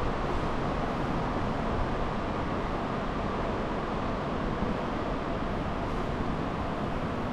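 Steady outdoor background noise, a low rumble and hiss with no distinct events, like road traffic with wind on the microphone.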